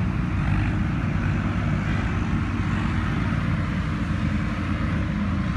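Several farm tractors' diesel engines running together under heavy load, a steady low drone, as they tow a loaded sugarcane trolley.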